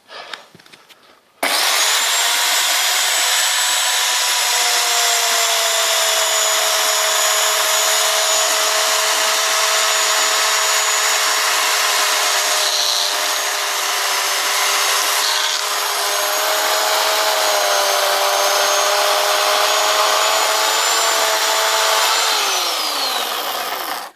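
Chainsaw with a freshly sharpened chain cutting wood: it starts abruptly about a second and a half in and runs with a steady high whine, dipping slightly under load, then winds down near the end.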